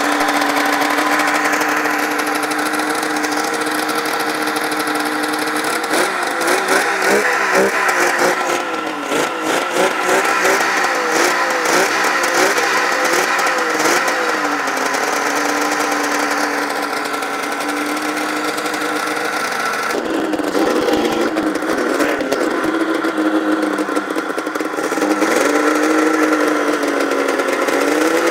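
Two-stroke Polaris snowmobile engine running on a stand with its coolant hoses looped straight back into the motor and no cooler, so it is heating up as it runs. It holds a steady fast idle, is blipped up and down on the throttle from about six seconds in, settles again, then dips and is revved back up from about twenty seconds in.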